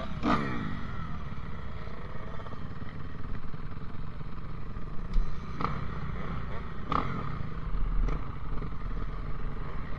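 Dirt bike engines idling steadily, with three short sharp knocks, the first right at the start.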